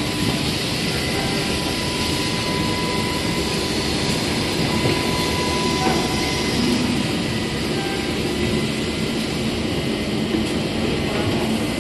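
Industrial machinery of a CNC panel-cutting line running: an even, steady noise with a faint steady whine.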